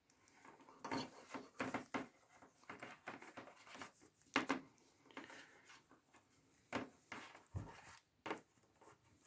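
Irregular handling noises: rubbing and rustling with a string of light knocks and clicks, the sharpest about four and a half seconds in.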